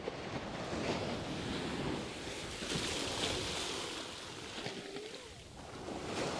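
Surf washing up a sandy beach, swelling and easing, with wind buffeting the microphone.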